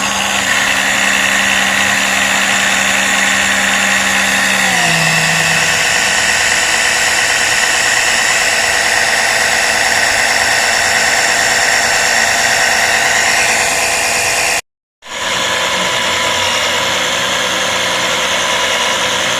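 Oil extraction pump running steadily, drawing warm engine oil out of the crankcase through the dipstick tube; its motor note drops in pitch about five seconds in and cuts out briefly near the end.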